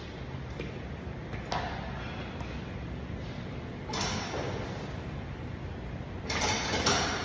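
Rear-delt fly machine in use: its weight stack and arms sliding in short rushing bursts, one faint about a second and a half in, one about four seconds in, and a louder, longer one near the end, over a steady low hum.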